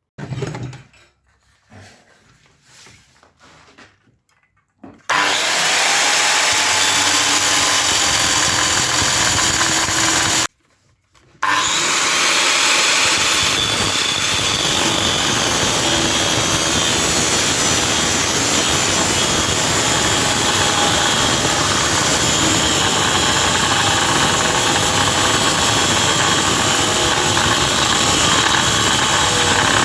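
A power tool cutting through the metal casing of an old air-conditioning compressor, a loud, steady cutting noise. It starts about five seconds in, stops for about a second near the middle, then carries on cutting.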